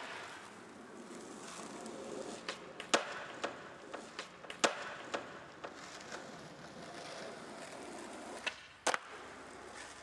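Skateboard wheels rolling on asphalt, a steady rolling noise broken by a series of sharp clicks and clacks, the loudest about three seconds in and again near five seconds, with a quick double clack near the end.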